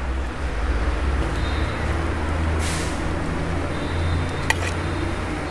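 Steady low rumble with a hiss over it, broken by a brief sharper hiss about two and a half seconds in and a single sharp click about four and a half seconds in.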